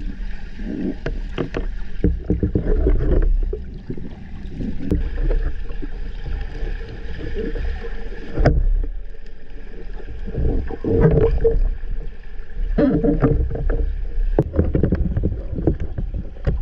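Muffled underwater sound in a swimming pool: irregular bubbling, clicks and water movement over a low rumble, with a faint steady hum.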